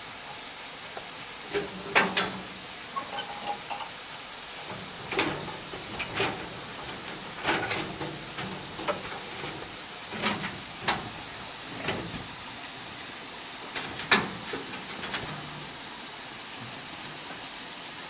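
Irregular knocks and clanks, several sharp ones scattered through, the loudest about two seconds in and again about fourteen seconds in, over a steady faint high-pitched hum.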